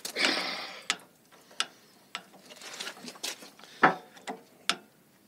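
Ratchet handle on a pin-type gland nut wrench clicking, with metal knocks against a hydraulic cylinder, as it is worked to break the gland nut loose. A short scrape at the start, then a string of irregular sharp clicks, the loudest a little under four seconds in.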